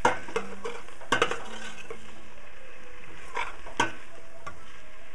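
Metal slotted spoon stirring chopped green pepper and onion in oil in a stainless steel pot, with several sharp clinks and scrapes of the spoon against the pot. The vegetables fry with a soft sizzle underneath.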